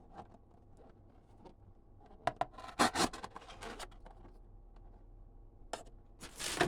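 Folding pocket knife being handled: short scrapes and clicks, a cluster about two to three seconds in and another near the end.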